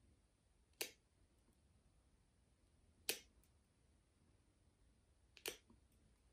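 Pet nail clippers snipping a cat's claws: three sharp clicks about two and a half seconds apart, the last a quick double click.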